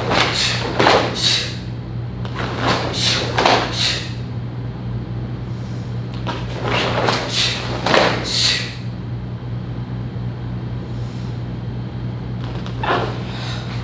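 Karate gi sleeves and jacket snapping with fast punches and strikes, in quick groups of two or three swishes, over a steady low hum.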